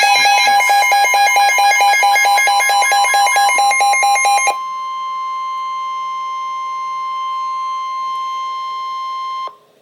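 Emergency Alert System attention tones. A loud pulsing two-tone alarm stops abruptly about four and a half seconds in, and a steady single high tone, the weather-radio warning tone, follows and cuts off near the end.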